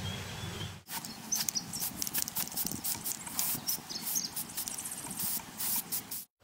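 Aerosol spray can of rust-preventive primer sprayed in many short bursts of hiss onto bare seat spring frames, starting about a second in.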